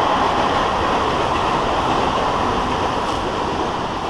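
A passing train running through the station: a steady rushing noise of wheels on rail that slowly grows quieter toward the end.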